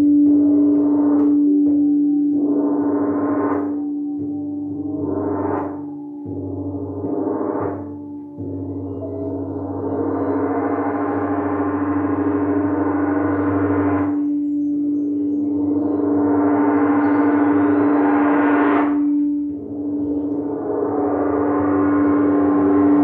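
Crystal singing bowls ringing: one steady low hum held throughout, under repeated swells of brighter overtones that build and fall away. The swells are short over the first few seconds and grow to about five seconds each after that.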